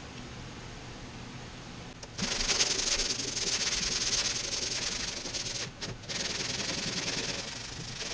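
Sandpaper rasping back and forth by hand over partly cured body filler on a van roof, starting about two seconds in, with a short break about halfway through. The filler is still soft enough to clog the paper. A blower hums steadily underneath.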